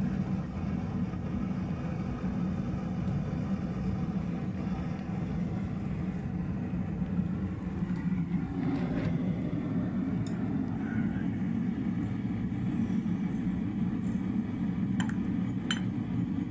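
Two-burner Devil's Forge propane forge running with a steady low rush of burning gas, and a couple of sharp clicks near the end.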